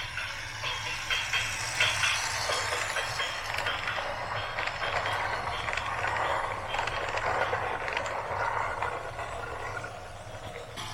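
Heavy machinery running: a steady low engine hum under continuous metallic rattling and clattering.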